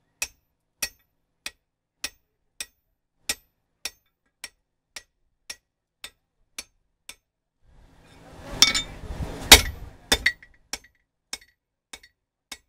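Hammer striking the top of a steel drift to open the eye in a hot coil-spring steel axe head, sharp ringing blows at an even pace of nearly two a second. About eight seconds in comes a louder clatter of metal clanking, then a few more single strikes.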